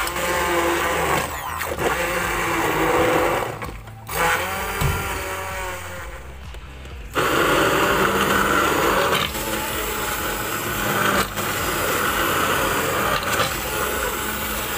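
Handheld immersion blender running in a pot, puréeing cooked potatoes, carrots and pumpkin in their liquid into a smooth soup. The noise dips briefly about four seconds in and drops off again around six to seven seconds, then comes back at full strength and runs on.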